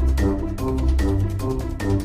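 Background music with a steady beat, a pulsing bass line and bright plucked or mallet-like notes.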